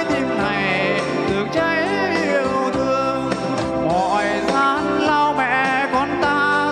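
Music: a Vietnamese song with instrumental accompaniment, its melody line wavering with heavy vibrato.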